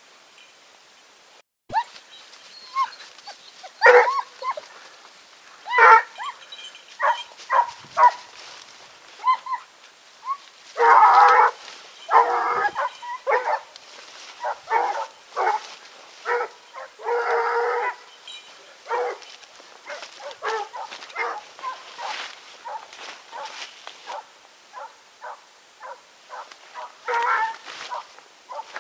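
Grand Bleu de Gascogne hound baying: a run of irregular short barks, with longer drawn-out bays about eleven and seventeen seconds in.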